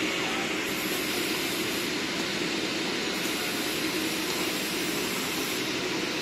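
PVA detergent capsule production machine running with a steady mechanical noise.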